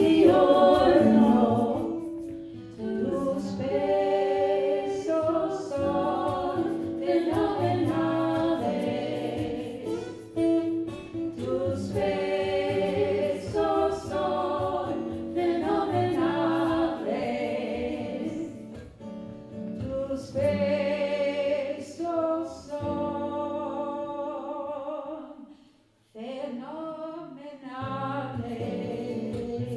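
Live folk song: women's voices singing together over an acoustic guitar accompaniment, with a brief break about 26 seconds in before the music picks up again.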